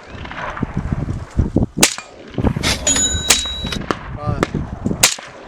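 Rifle shots fired at steel targets, three of them spread over a few seconds. The middle one is followed by a brief ringing ding from a struck steel plate. Wind rumbles on the microphone underneath.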